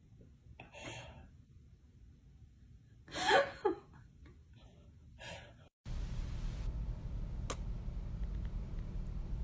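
Three short breathy gasps, the middle one the loudest, then an abrupt change to a steady low rumble with a single click.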